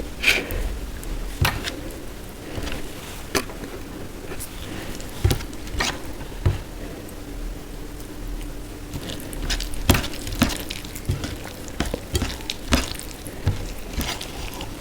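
Close-up eating sounds from a meal of dal, rice and mashed potato: soft chewing and squishing with scattered sharp clicks and taps of food and utensils on a plate, irregular, about one every second or so.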